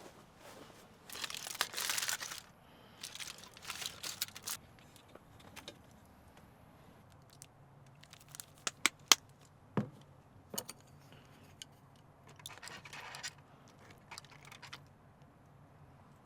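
Bursts of rustling and crinkling, as of fabric or plastic being handled, with a few sharp clicks and knocks around the middle.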